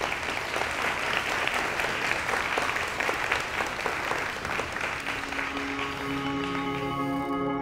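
Audience applauding. About five seconds in, soft ambient music with sustained tones fades in under the clapping, and the applause dies away near the end.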